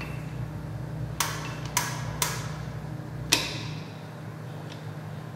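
Hand-chain hoist clicking four times at uneven intervals, about a second apart, as its hand chain is pulled to raise the load on a steel S-hook to about 800 pounds; the last click rings briefly.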